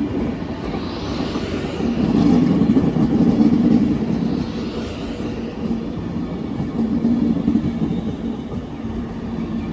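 Avanti West Coast Class 390 Pendolino electric train passing through the station at speed: a steady running noise of wheels on rail, at its loudest about two to four seconds in.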